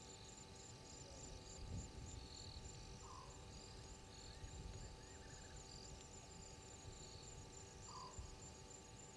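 Faint chorus of insects: a high, steady pulsing trill with short chirps repeating about once a second, and a brief lower call about every five seconds.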